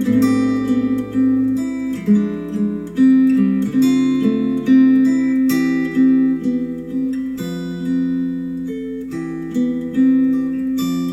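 Acoustic guitar music played back through Adam Audio A3X powered studio monitors: plucked notes and chords, a new one about every second, each ringing on and fading.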